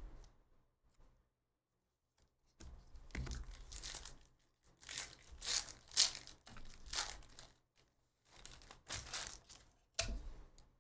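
Foil wrapper of a trading-card pack being torn open and crinkled by hand. It starts a few seconds in as a run of irregular rips and crackles.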